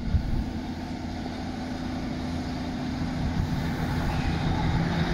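Class 150 Sprinter diesel multiple unit running into the platform, its underfloor diesel engines giving a steady low hum that grows louder as the train draws near.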